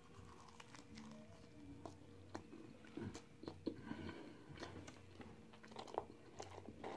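A man chewing a bite of Jamaican patty with his mouth close to the microphone: faint, irregular wet mouth clicks and small crunches of the pastry crust.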